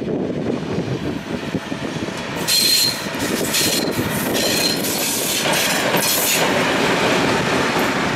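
An M62 diesel locomotive, running alone, passes slowly and close by with its two-stroke V12 diesel engine running. From about two and a half seconds in, its wheels clatter over the rails, with three short high squeals about a second apart.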